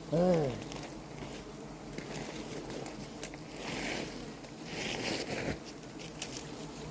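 Rustling and wet squelching from wild honeycomb being handled, with a short grunt just after the start and a few sharp clicks.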